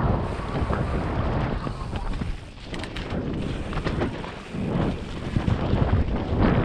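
Mountain bike riding fast down forest singletrack: wind rushing over the microphone, tyres rolling over dirt, leaves and roots, and frequent knocks and rattles from the bike over bumps.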